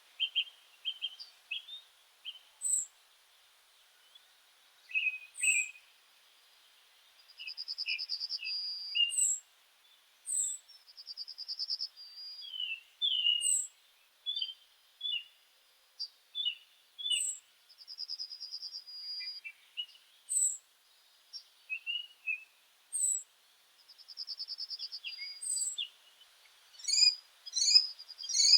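Several meadow songbirds singing together: thin, very high notes repeated every second or two, short chirps and slurred whistles, and a buzzy trill about a second long that recurs every few seconds.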